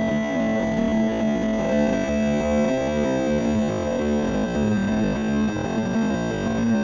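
Background music with a steady held low note under changing notes above it.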